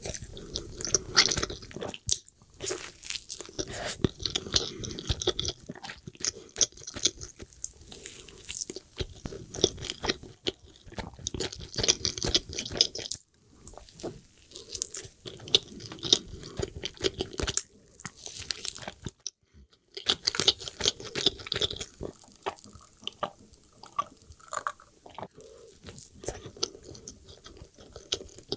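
ASMR eating sounds: crunchy bites and wet chewing of a chicken burger, irregular and continuous, broken by a short silent gap a little past two-thirds through.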